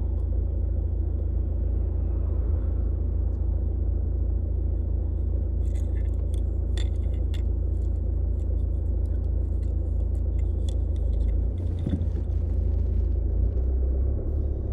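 Car running, a steady low rumble heard from inside the cabin, with a few light clicks about six to seven seconds in.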